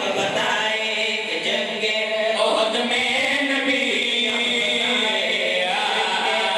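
A group of men chanting a noha, a mourning lament, together into a microphone, unaccompanied, with long held melodic lines that carry on without a break.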